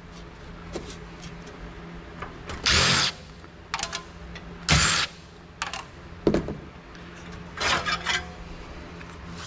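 DeWalt Atomic cordless driver running in three short bursts of about half a second each, backing out the screws that hold a hard drive in a steel PC case, with clicks and light metal clatter between the bursts.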